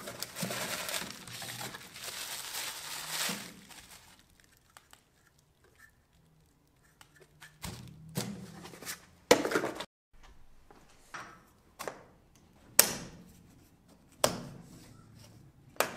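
Bubble wrap crinkling for about three seconds as a small part is unwrapped from a cardboard box, then a string of sharp plastic clicks and knocks as the black adjustable cap of an air filter-regulator is handled and fitted onto the regulator.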